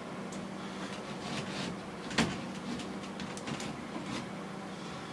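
Knocks and taps from hands working inside a cut-open ceiling around the plumbing: one sharp knock about two seconds in, with lighter taps and scrapes around it, over a steady low hum.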